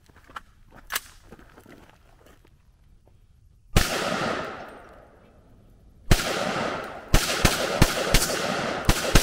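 300 Blackout rifle firing. After a few faint clicks, there is a single shot, a second shot about two seconds later, then a string of rapid shots about three a second, each trailing off in a rolling echo.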